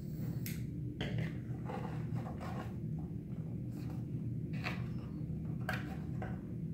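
Thin plastic helmet part being handled and flexed by hand, giving scattered light knocks and crinkles: a cluster in the first couple of seconds, then a few sharper clicks about four and a half to six seconds in. A steady low hum runs underneath.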